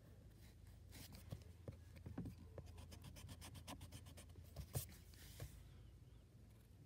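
Faint scratching of a wooden pencil on paper, drawn in quick short strokes, with a sharper tap about five seconds in.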